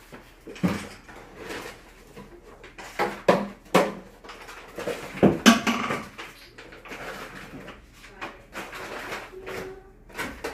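Irregular handling noises: a run of short knocks and rustles, loudest about three to six seconds in, with a brief squeak near the end.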